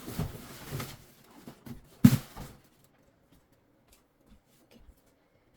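Handling of a gift box and its wrapping: rustling and handling noise in the first second, then one sharp, loud knock about two seconds in.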